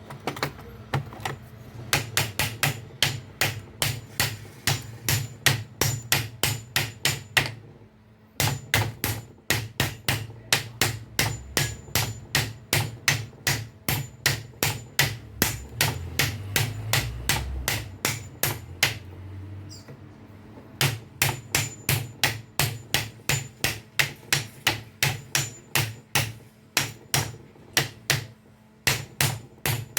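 Hammer blows on metal, about two a second, in three runs with short pauses, driving a replacement bearing into a car alternator.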